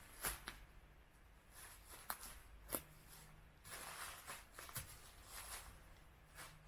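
Faint footsteps on the forest floor, with rustling patches and a few sharp cracks at irregular intervals.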